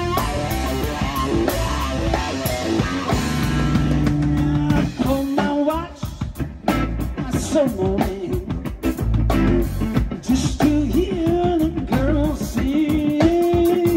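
Live rock trio playing: electric guitar through a Marshall amp plays lead lines with bends and slides over bass guitar and a drum kit. The drumming grows busier and more prominent from about halfway through.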